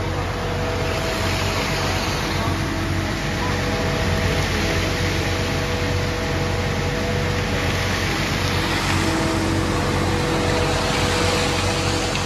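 Concrete mixer truck running steadily while discharging concrete down a pipe: engine and turning drum give a constant hum with a steady whine over it.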